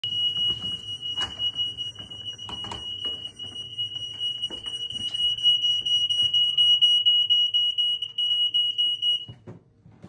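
Ceiling-mounted smoke alarm sounding a continuous, high-pitched shrill tone, set off by light smoke from cooking. It cuts off suddenly about nine seconds in, with a few knocks underneath.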